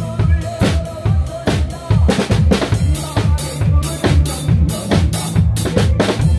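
Acoustic drum kit played in a steady trot beat, with kick, snare and cymbals, along with a recorded trot backing track carrying bass and melody.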